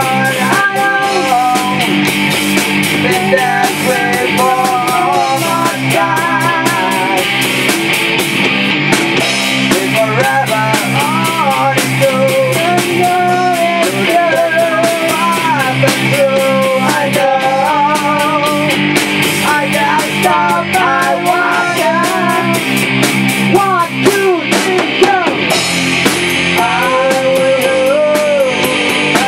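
A rock band playing: electric guitars and a Tama drum kit, with a melodic line bending and wavering over a steady, dense accompaniment.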